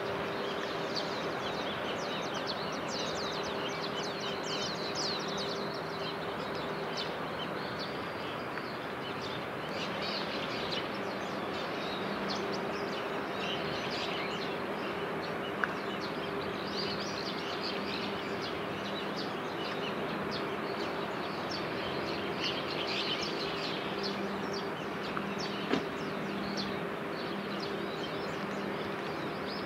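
Birds chirping again and again over a steady low hum and background noise, with two brief clicks about ten seconds apart.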